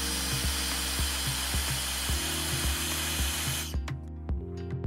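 Hairdryer blowing hot air with a steady rush, switched off abruptly near the end; it is warming adhesive on the back of the display to loosen the front-sensor flex.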